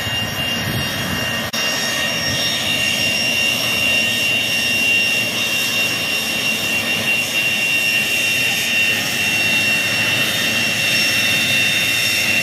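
A two-seat A-4 Skyhawk's Pratt & Whitney J52 turbojet running at taxi power as the jet rolls slowly along the apron. It makes a steady high-pitched whine over a rushing roar, and the whine strengthens a little about three seconds in.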